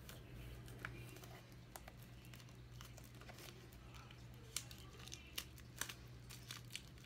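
Faint crinkling and scattered small crackles of plastic shrink-wrap being picked at and peeled off a Blu-ray box set, with a few sharper crackles in the second half.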